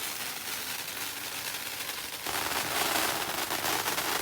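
Handheld firework burning with a steady, dense crackling hiss that grows louder about two seconds in.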